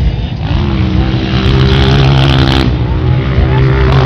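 Dirt bike engine running hard at high, fairly steady revs, rising a little in pitch about half a second in.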